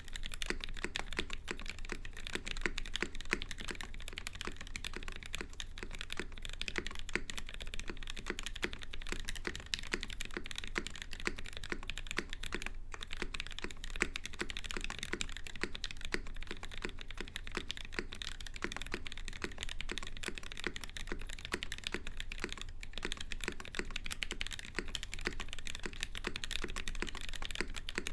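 Continuous fast typing on a custom 65% mechanical keyboard: top-mount case with an aluminium plate, lubed Gateron KS-3 yellow linear switches and GMK keycaps, giving a dense run of quick key clacks. A steady low hum lies underneath.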